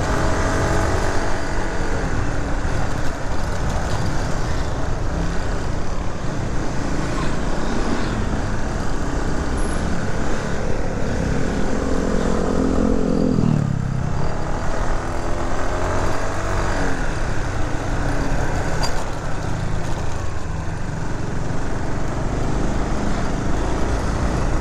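Vehicle engine running on the move, its pitch climbing in stretches and dropping sharply about halfway through, over steady road noise.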